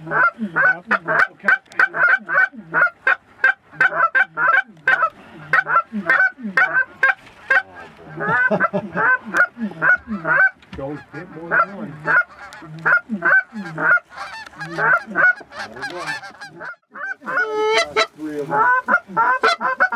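Geese honking: a dense, unbroken run of short honks and clucks, several a second, with a longer drawn-out honk near the end.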